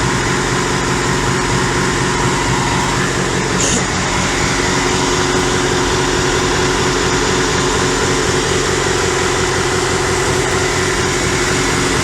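Longtail boat's Isuzu 4JJ1 turbo-diesel engine running steadily at constant revs, an even drone with no change in pitch.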